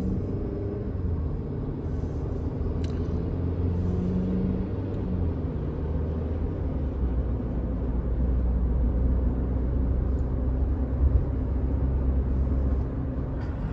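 Steady low rumble of road and engine noise heard inside the cabin of a moving Hyundai, a little louder in the second half as it drives on.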